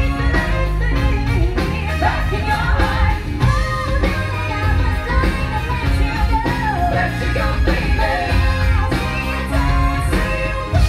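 Live band playing rock music with singing, electric guitar and a steady drum beat.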